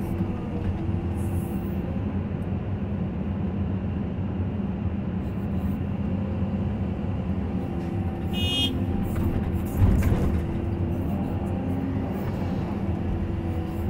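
Caterpillar 320 hydraulic excavator's diesel engine running steadily, heard from inside the cab, as the machine swings a loaded bucket over a dump truck and empties it. A brief high squeak comes about eight seconds in, and a heavy thud just before ten seconds as the load of earth drops into the truck's steel bed.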